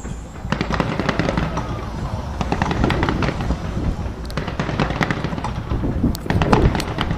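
Skyscraper fireworks display: a dense run of sharp pops and bangs, many each second, over a continuous low rumble, with a loud cluster near the end.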